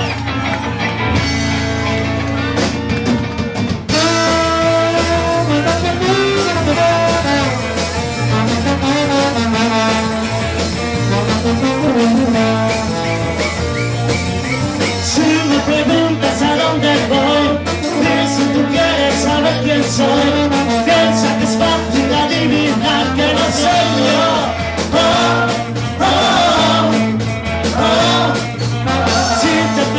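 Live band music from electric guitars, bass and trombone with a steady beat, filling out about four seconds in.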